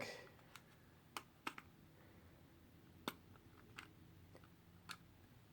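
A handful of faint, irregular clicks and taps of a screwdriver and small plastic parts as a cassette Walkman's plastic casing is pried open.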